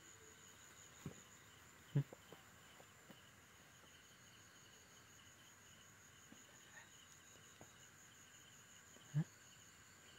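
Crickets chirring steadily at several high pitches, faintly. Two short dull thumps stand out, one about two seconds in and one near the end.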